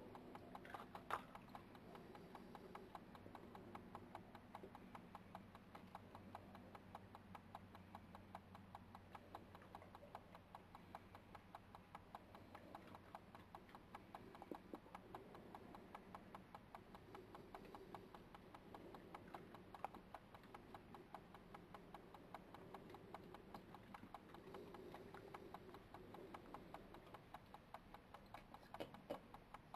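Faint, rapid crunching clicks of badgers and a fox chewing food, over a low steady hum.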